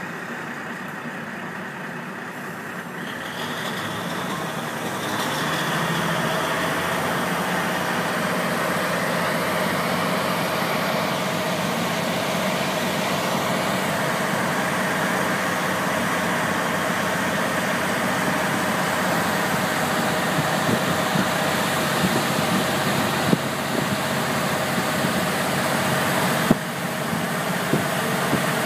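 Diesel engine of a KiHa 48 railcar heard from inside the car. The engine throttles up and gets louder about three to five seconds in, then runs steadily as the train pulls along. A few sharp wheel clicks over rail joints come near the end.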